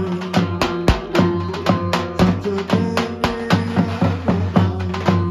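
Live folk dance music: a davul bass drum beats a fast, steady rhythm of about four to five strokes a second under a sustained, shifting melody line.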